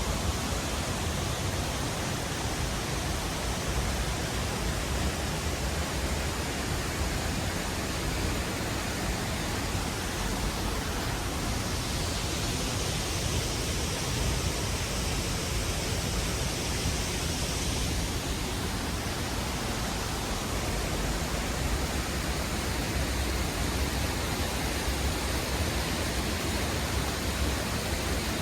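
Waterfall rushing in a steady, unbroken roar, with the high hiss growing a little stronger for several seconds midway.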